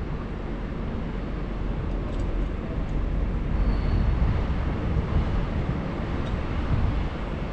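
A steady low rumble of noise, fluttering unevenly, with no clear rhythm or pitch.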